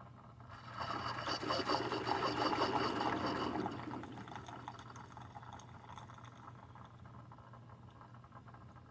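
Tastyle single-serve coffee maker dispensing hot coffee, which spurts and splashes into a cup. It starts about half a second in and dies away to a faint trickle after about four seconds.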